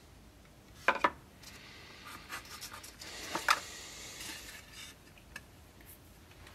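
Wooden scabbard pieces and a pine board handled on a workbench: two sharp wooden knocks about a second in, then wood rubbing and sliding with another sharp knock midway and a light tick near the end.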